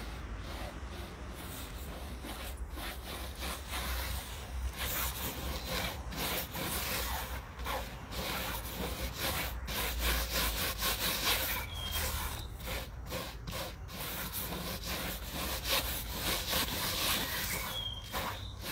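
Gloved hand rubbing damp fishing earth through a wire-mesh sieve: a continuous, uneven scraping of soil against the mesh.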